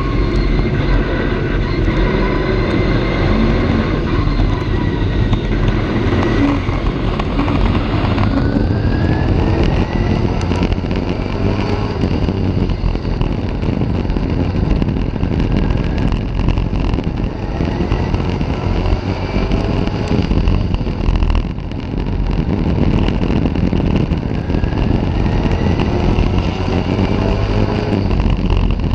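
Stock car engine at racing speed heard from an onboard camera on the car, loud and unbroken, its pitch rising and falling as the throttle is worked through the laps, with a clear rising sweep of acceleration about a third of the way in. Other race cars' engines run close around it in the pack.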